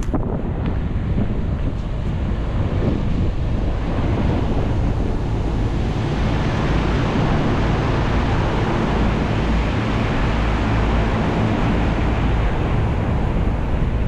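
Outdoor heat pump units running, their fans giving a steady rush of air with a heavy, unsteady low rumble that sounds like wind buffeting the microphone. The rush swells in the first second, then holds steady.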